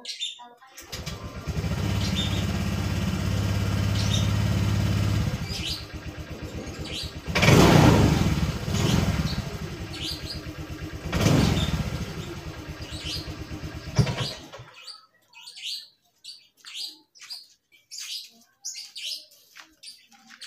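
Honda Vario fuel-injected single-cylinder scooter engine started about a second in and idling steadily, then revved with sudden snaps of the throttle three times; right after the third it stalls and cuts out. Dying on sudden throttle like this is taken to mean late fuel delivery or a dirty throttle body. After the engine stops, birds chirp.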